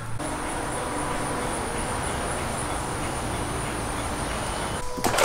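Steady, even background noise with a faint high-pitched whine over it, starting and stopping abruptly.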